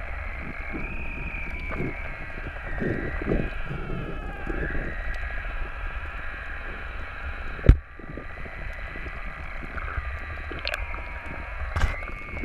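Underwater sound heard through a submerged camera: a low rush of moving water with faint wavering whines, a sharp knock about two-thirds of the way through and a lighter one near the end.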